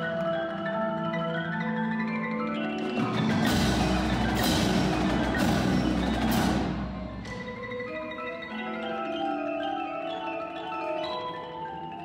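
An indoor drumline's front ensemble playing music on marimbas and other mallet keyboards, with many ringing pitched notes. From about three and a half to seven seconds in it swells into a louder, fuller passage with a deep low rumble and several crashes, then drops back to the mallet notes.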